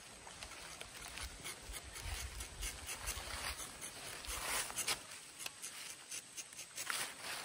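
Hooked rubber-tapping knife shaving a thin strip of bark from a rubber tree: short rasping scrapes, the loudest about four and a half and seven seconds in.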